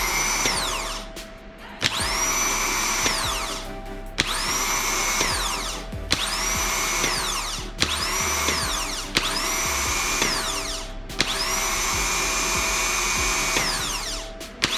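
Rebuilt Skoda Fabia starter motor bench-tested on battery leads with fresh brushes: about seven short runs, each starting with a sharp click and a rising whine that holds steady and then winds down, the longest near the end. It spins freely, showing the starter works.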